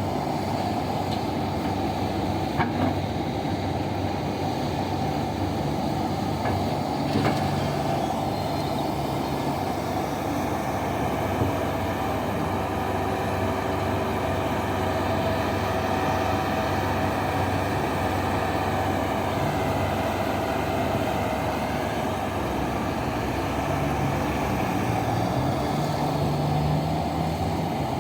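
Heavy diesel mining machinery running steadily, an excavator and haul truck at work, with a few brief sharp knocks.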